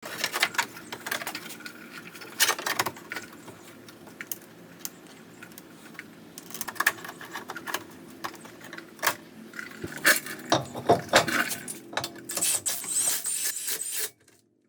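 Hand tools and small metal parts clinking and rattling, with irregular sharp clicks and knocks.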